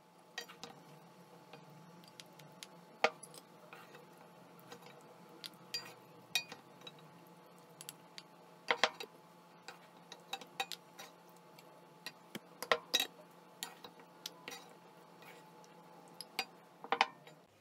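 Wooden spoon knocking and scraping against earthenware güveç dishes and a pan as a chunky stew is spooned in: scattered, irregular light taps and clicks, a few of them louder.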